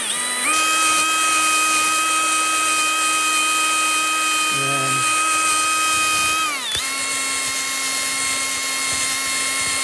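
Small high-speed rotary tool whining steadily as it cleans crud off chainsaw chain teeth. Its pitch sags briefly about half a second in and sharply about two-thirds through as it bears on a tooth, then steadies.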